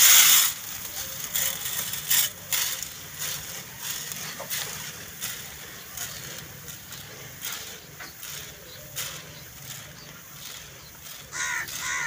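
Dry grain pouring from a plastic sack into a metal tin. A heavy rush comes at the start, then a run of smaller pours, trickles and rustles of the sack.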